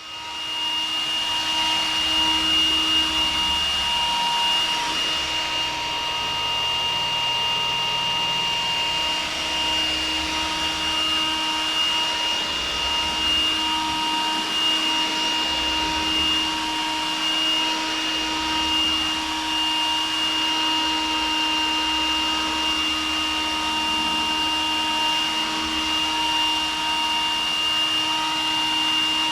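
Vacuum cleaner running steadily, its motor giving a constant high whine over a rushing noise.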